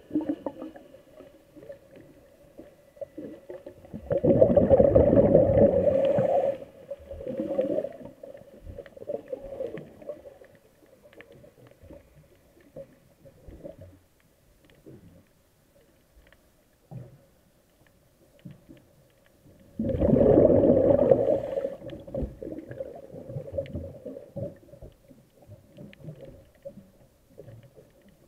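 A diver's breathing heard underwater: two bursts of exhaled bubbles from the regulator, each about two and a half seconds long and spaced about sixteen seconds apart, over quieter gurgling and a steady low hum.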